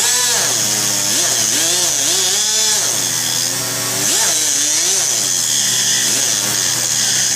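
Angle grinder cutting steel, its pitch dipping and recovering again and again as the wheel loads and unloads in the cut. Under it an electric air compressor runs with a steady low hum, refilling its tank.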